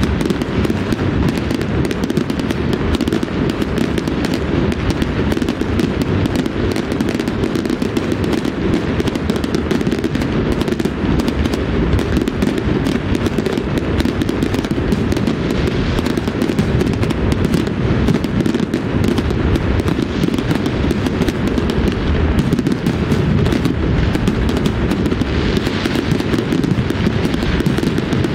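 Fireworks going off in a dense, unbroken barrage of bangs and crackling over a heavy low rumble.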